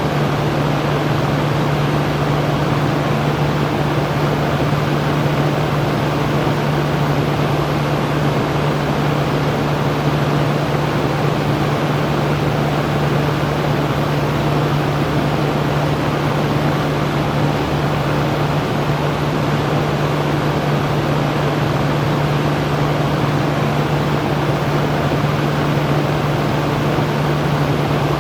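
Electric fan running steadily: an even rush of air with a steady low hum, unchanging throughout.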